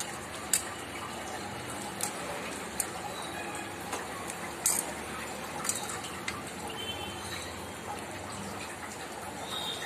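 Marinated chicken pieces sliding wet from a steel bowl into a hot pan of fried onions and capsicum, with the liquid marinade scraped in after them. A steady sizzle runs underneath, broken by a few sharp clicks of the bowl and spoon against the pan.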